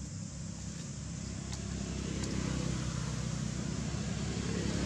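A motor vehicle's engine running steadily in the background as a low rumble, growing a little louder about two seconds in, over a steady hiss.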